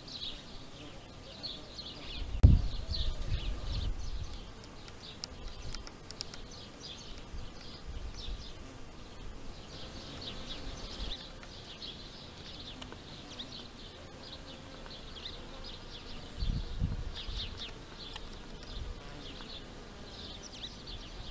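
Bees buzzing around flowering blossoms, with a steady run of high chirping from small birds in the background. Two low thumps hit the microphone, one a couple of seconds in and another later on.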